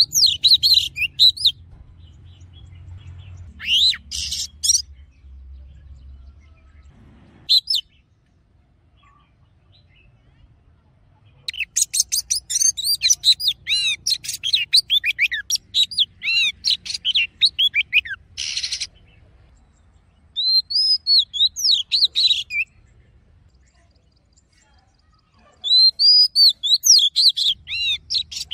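Oriental magpie-robin singing: phrases of rapid, varied whistled notes separated by pauses of a few seconds, the longest phrase running about seven seconds in the middle.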